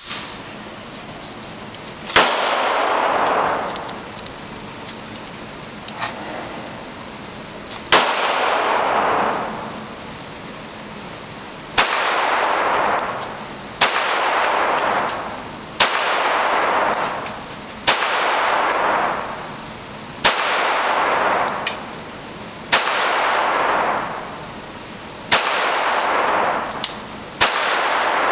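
Sig Sauer P226 pistol in .22LR fired in slow single shots, about one every two seconds, eleven in all. Each sharp crack is followed by a ringing tail of a second or more off the walls of the indoor range.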